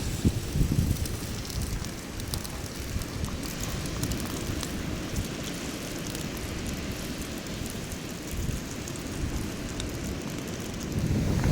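Steady rain pattering, with wind rumbling on the microphone, heavier in the first second.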